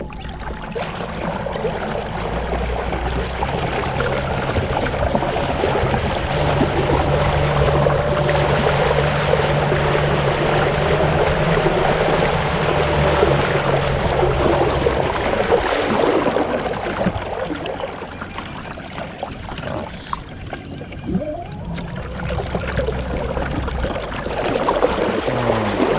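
Kayak under way on a brushless electric motor at higher power: water rushing and splashing along the hull, with a steady motor hum. About two-thirds of the way in the sound eases off as the power drops, which the owner suspects is the speed controller's thermal protection cutting back an overheating motor.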